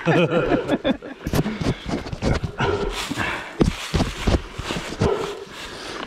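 A man's wordless, drawn-out vocal sounds, not speech, mixed with scattered knocks and scuffs.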